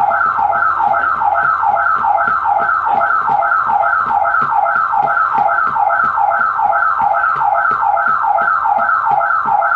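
Security alarm siren sounding loud and continuous, a repeating high-low pattern of falling tones at about three cycles a second, set off during an attempted break-in at a front door.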